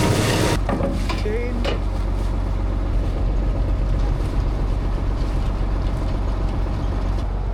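Tractor engine running steadily with a low drone. A loud rushing noise over it cuts off suddenly about half a second in.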